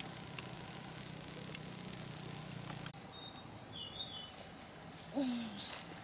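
Forest ambience. In the first half, light crackling from campfire embers over a low hum. After an abrupt change about halfway through, a steady high insect trill with a few bird chirps, and one short falling hoot-like call near the end.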